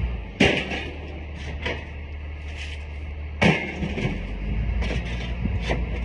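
Scrap metal, including a length of metal pipe, thrown out of a pickup bed and clanking onto a scrap pile. There are two loud impacts, about half a second in and about three and a half seconds in, with lighter knocks between.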